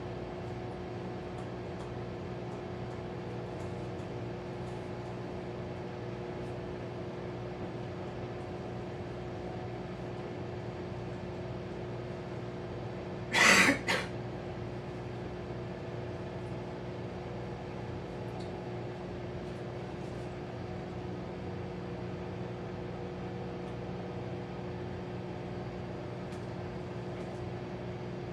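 Hamilton Beach microwave oven running, a steady low hum. About halfway through, a short loud burst sounds twice in quick succession.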